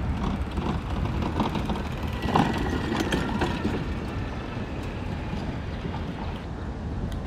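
Golf cart driving past over grass and then away, loudest as it passes close about two and a half seconds in, over a steady low rumble.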